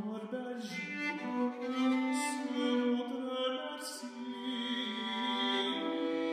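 A tenor singing in medieval French, accompanied by a bowed vielle, both moving through long held notes.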